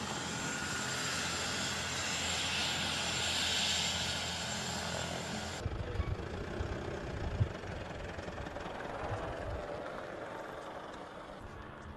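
Steady engine drone for about five and a half seconds, then an abrupt cut to buffeting outdoor noise with a few sharp knocks, fading toward the end.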